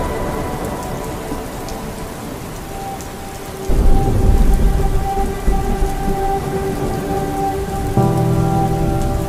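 Rain falling on a moving car, under sustained music chords that change about eight seconds in. About four seconds in, a loud low rumble comes in and stays.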